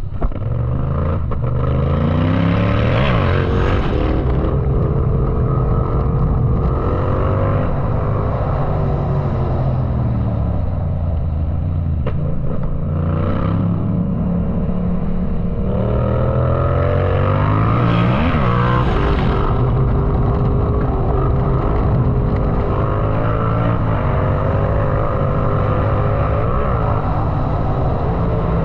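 Yamaha MT-07's 689 cc parallel-twin engine under hard riding, its pitch climbing and dropping again and again as the throttle is worked through the gears. Two sharp revs stand out, about 3 seconds in and again about 18 seconds in.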